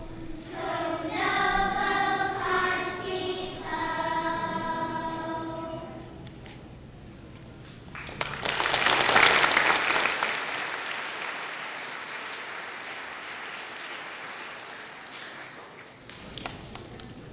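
Children's choir singing the last phrases of a song, ending about six seconds in. About two seconds later the congregation applauds; the applause starts suddenly, peaks, then fades away over several seconds.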